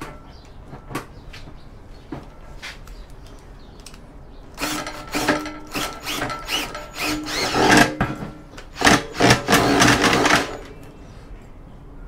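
Ryobi cordless drill driving an Enerpat wire stripping machine in a run of short, uneven bursts for about six seconds, as a heavy five-core cable is fed through for stripping. A few faint clicks of handling come before it.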